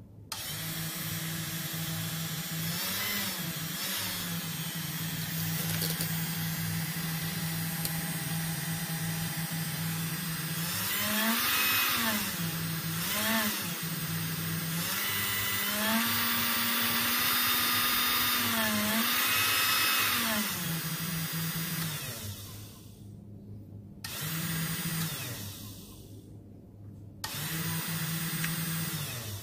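Homemade CNC machine running with its 775 DC motor spindle, a steady motorised whir whose pitch steps up and falls back again and again as the machine works. It drops away briefly twice near the end.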